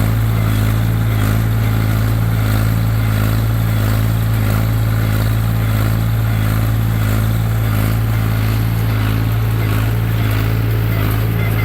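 Tractor engine running at a steady, even speed, a loud unchanging drone with a strong low hum.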